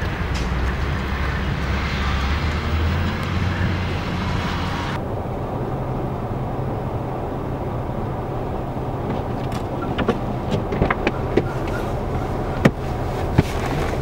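Wind and a wheel loader's diesel engine running, with a strong low rumble. About five seconds in the sound changes suddenly to a BMW sedan stuck in a snow drift, its engine running, with scattered clicks and knocks.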